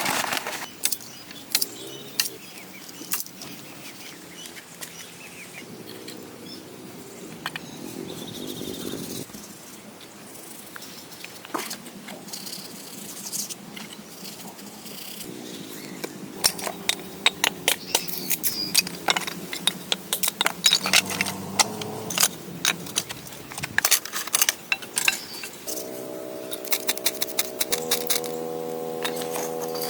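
Irregular clicks, taps and knocks, with a steady pitched drone coming in now and then and holding from about four seconds before the end.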